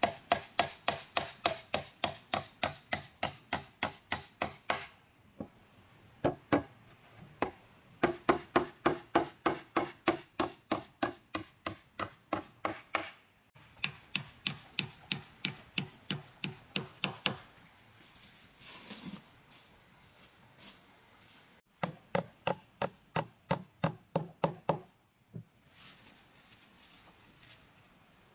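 Rapid, even chopping blows on wood, about four a second, in runs of several seconds broken by short pauses.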